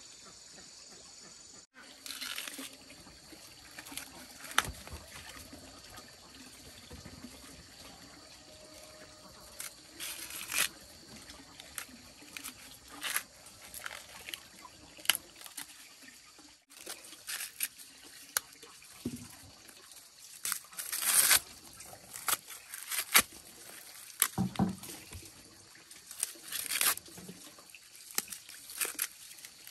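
Water splashing, trickling and dribbling in short, irregular bursts, with sharp clicks and knocks among them.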